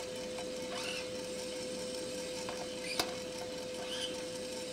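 A 1 kg drum coffee roaster running near the end of a roast: a steady mechanical hum with a constant tone from the drum, fan and cooling-tray stirring arms. A single sharp metal click about three seconds in comes as the sample trier is handled.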